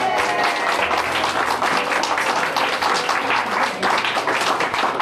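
A roomful of people clapping: dense, steady applause.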